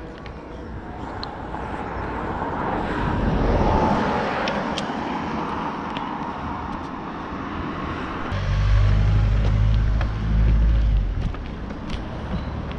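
Wind and road noise on a bicycle-mounted action camera while riding: a rushing hiss that swells to a peak about four seconds in and eases off. From about eight seconds in, a heavy low rumble of wind buffeting the microphone follows.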